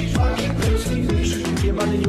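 Electronic dance music with a steady beat and deep bass notes that slide down in pitch.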